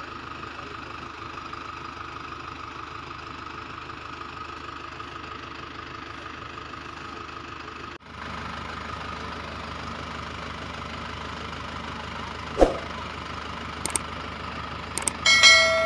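Steady engine-like running sound with a constant whine, cutting off suddenly about halfway and then resuming. Near the end come a sharp click, a few lighter clicks and a bell-like chime.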